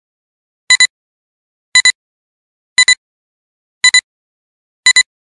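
Countdown-leader beeps: a short electronic double beep about once a second, five times, with silence between.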